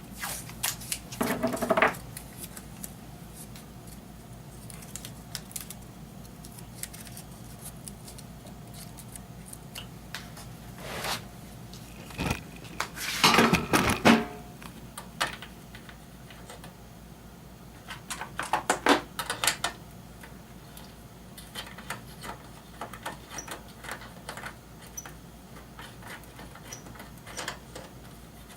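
Intermittent small clicks, taps and rattles of hands and tools working on a vintage stereo receiver, in short clusters near the start, just past halfway (the loudest) and about two-thirds in, over a faint steady low hum.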